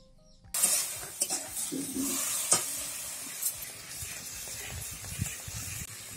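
Chopped tomatoes frying in a steel kadai over a wood fire, sizzling steadily from about half a second in, with a few sharp clicks.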